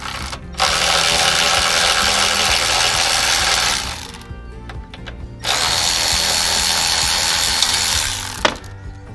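A power tool runs in two bursts of about three seconds each, with a couple of knocks near the end, over background music.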